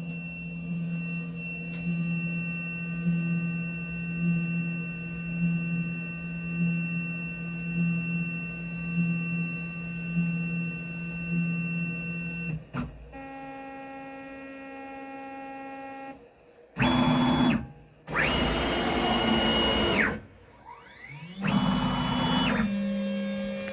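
Motors of a home-built CNC machine humming steadily, with a faint pulse about once a second. In the last third a motor runs loudly three times, for one to two seconds each, starting and stopping sharply, then settles back to a steady hum.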